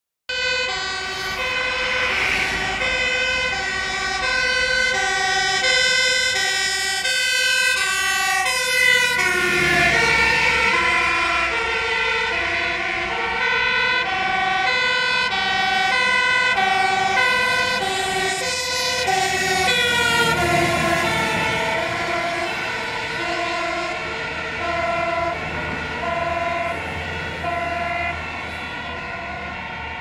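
Two-tone sirens of Dutch fire engines, a pumper and an aerial platform truck, alternating high and low about every half second on an urgent run. The siren pitch drops as each vehicle goes by, about nine and twenty seconds in, over the rumble of the engines.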